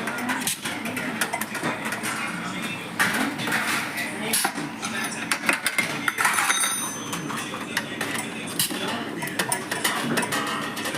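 Metal parts clinking and clattering as they are handled, in quick irregular knocks, with voices talking in the background.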